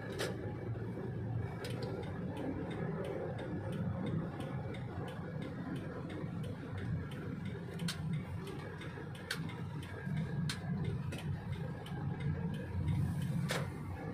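Inside a moving car's cabin: steady engine and road rumble, with the regular tick-tock of the turn-signal indicator as the car turns at junctions. A few louder clicks stand out.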